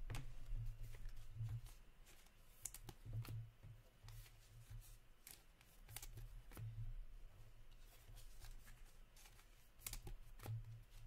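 Hockey trading cards handled by hand: soft clicks and slides as the cards are shuffled and flipped through one by one, scattered across the whole stretch. A low hum runs underneath.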